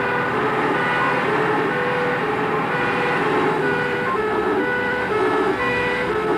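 Two-tone horns of a Shelvoke and Drewry fire engine sounding, switching back and forth between two pitches, over the appliance's engine and road noise, heard from inside the cab.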